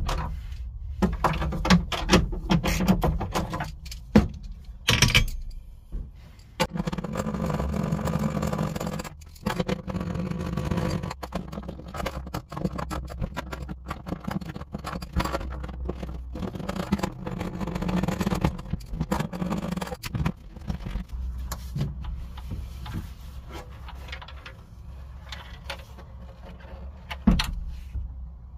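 Ratchet with a 10 mm deep socket clicking in bursts while the bolts holding the factory Pioneer subwoofer box are undone, with rattles and scrapes as the box is worked loose and lifted out, over a steady low hum. A sharp knock comes near the end.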